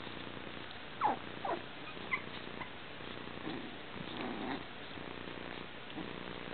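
Coton de Tulear puppies play-fighting: two short yelps falling in pitch about a second in, then low play growls a few seconds later.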